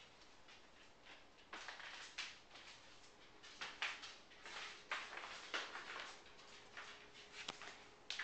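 Faint, irregular scuffs and rustles, several a second at times, from someone moving about while holding a small handheld camera.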